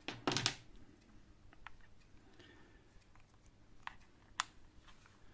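Small clicks and taps from hands handling a TP4056 charging board, its wires and small tools: a couple of louder knocks about half a second in, then a few sparse light clicks, the sharpest a little after four seconds.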